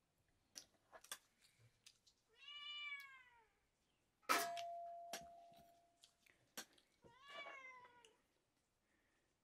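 A cat meowing twice, two drawn-out meows about a second long whose pitch drops at the end. Between them comes one sharp metallic clank that rings on for about two seconds, with a few small clicks of dishes.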